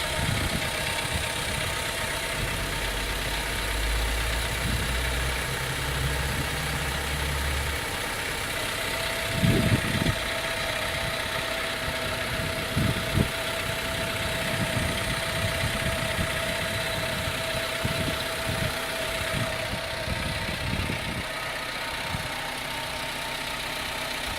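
Car engine idling with a metal tapping noise, which the owner calls engine knock and says doesn't sound good. A few dull thumps stand out about ten seconds in and again a few seconds later.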